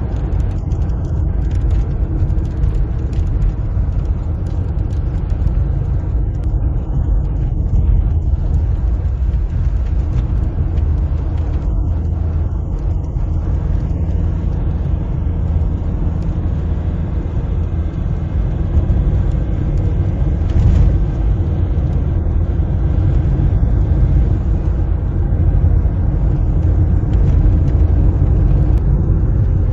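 A car driving along the road: a steady low rumble of road and engine noise that keeps up without a break.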